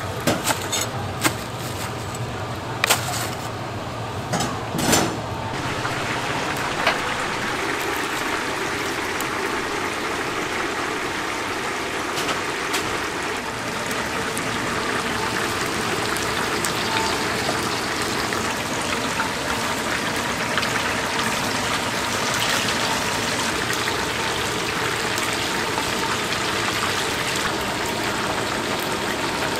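Hot oil sizzling steadily in a large frying cauldron as battered chicken deep-fries, with a few sharp clicks and knocks of metal tongs in the first several seconds.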